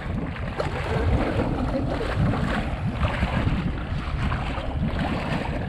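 Steady wind rumble on the microphone over the wash of open-sea water around the boat.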